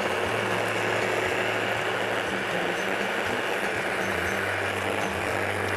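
Electric hand blender's motor running steadily in its chopper bowl, pureeing tomatoes, peppers and onion with oil into a sauce.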